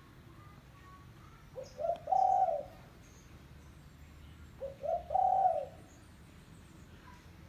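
Spotted dove (tekukur) cooing: two phrases about three seconds apart, each two short notes followed by a longer, rolling coo. Faint high chirps of small birds sound in the background.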